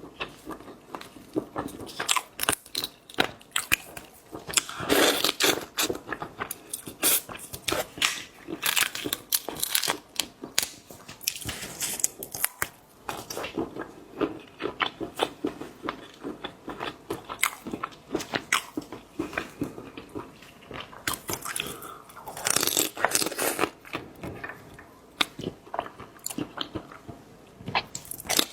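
Close-miked eating of boiled seafood: a dense run of crisp bites and crunches with wet chewing. The chewing comes in louder clusters about five seconds in and again a little past twenty seconds.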